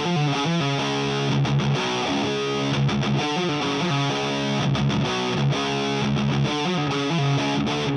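Modified Squier Classic Vibe Jaguar electric guitar played through a Diezel VH Micro amp head into a Marshall 4x12 cabinet: high-gain, heavily distorted heavy metal riffing with low chugging notes and quick changing figures.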